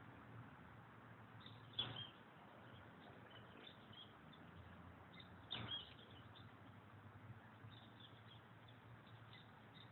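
Near silence with faint, scattered high bird chirps, broken by two brief soft bumps about two seconds and five and a half seconds in.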